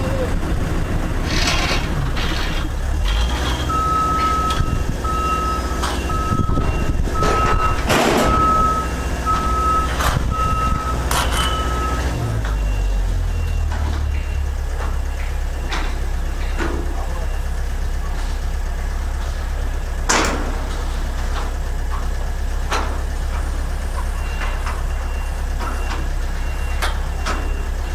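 Heavy equipment engine running steadily with a low rumble, while a machine's motion alarm beeps about once a second for around eight seconds, starting about four seconds in. Scattered metal knocks and clanks, the sharpest one about twenty seconds in.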